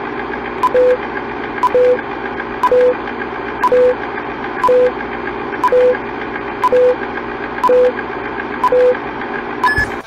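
Vintage film-countdown sound effect: a steady film-projector whir under a click and a short low beep once a second, nine times, ending with a higher-pitched beep just before the end.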